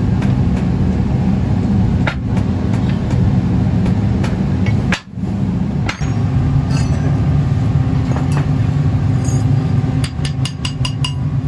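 Sharp metal taps and clinks from hand tools working a sand casting mould, ending in a quick run of about seven taps in a second, over a steady low machine drone.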